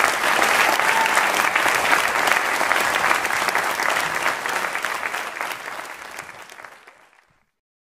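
Concert audience applauding, a dense patter of many hands clapping. It fades out from about five seconds in and stops a couple of seconds later.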